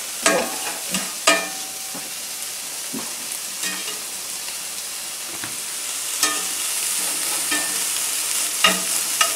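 Turkey bacon sizzling steadily in a cast-iron skillet as it fries to render out its fat, while a slotted spatula stirs the strips, scraping and clacking sharply against the pan several times.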